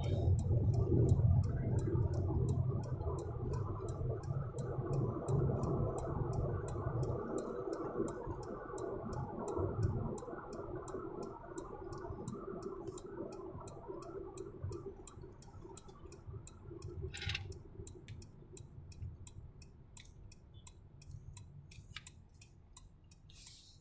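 A car's indicator relay ticking steadily and evenly inside the cabin, over low tyre and engine rumble that dies away as the car slows into a traffic queue.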